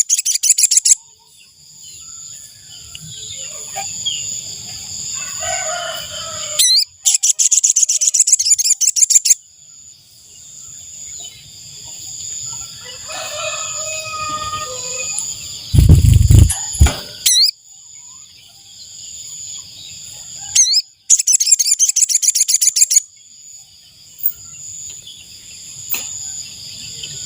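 Sogon (sogok ontong) bird song used as a trapping lure: a fast, high-pitched buzzing trill in bursts of one to two and a half seconds, repeated three times, over a steady high ringing. A rooster crows faintly in between, and a loud low thud comes about halfway through.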